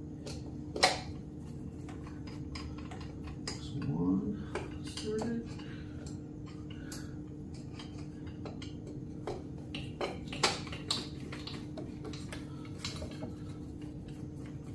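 Scattered small clicks and clinks of hand work on a new distributor cap and a screwdriver as the cap is seated on the distributor, with a sharp click about a second in and a few more near the middle. Under it runs a steady low hum.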